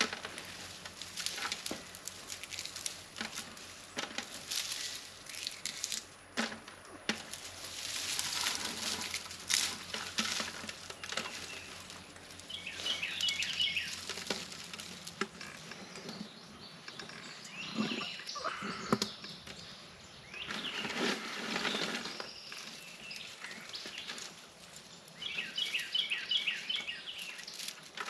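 Dry black radish seed pods crackling and rustling in irregular bursts as they are crushed between the hands. Birds chirp around the middle and again near the end.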